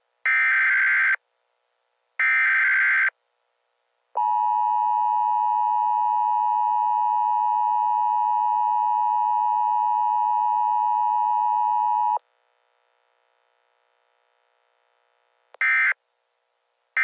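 Emergency Alert System broadcast signal: two bursts of the warbling digital SAME header data, then the steady two-tone EAS attention signal held for about eight seconds, and near the end two short data bursts.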